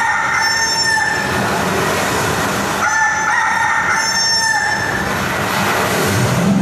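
Performance soundtrack over loudspeakers in a sound-effects passage: two long high-pitched calls about three seconds apart, each lasting about a second and a half, over a steady rushing noise.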